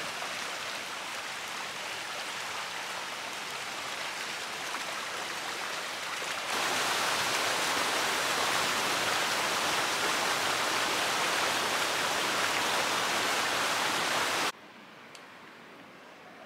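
Woodland stream running high with rain and snowmelt: a steady rush of water. It gets louder about six seconds in, then cuts off abruptly near the end.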